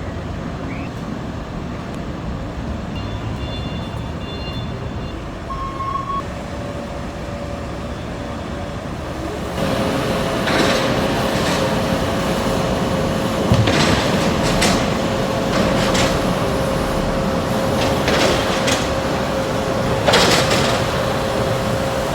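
Moving ladder truck's lift running: a steady engine rumble, joined about ten seconds in by a steady machine hum with repeated sharp clanks and knocks.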